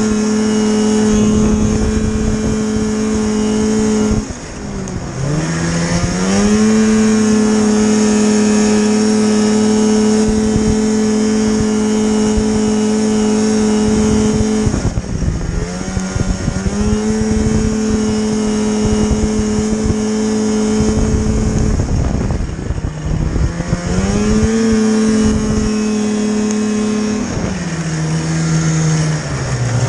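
Old Polaris snowmobile's two-stroke engine running hard at high, steady revs under way. Its pitch drops as the throttle is eased about four seconds in and again around fifteen seconds, then climbs back; near the end it falls lower and rises again.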